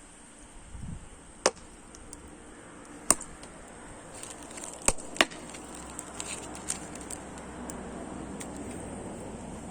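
Firewood burning with a few loud, sharp pops and scattered small crackles.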